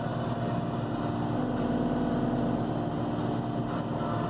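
Cat 242D skid steer's diesel engine running steadily, heard from inside the cab, with a steady hum that swells briefly midway.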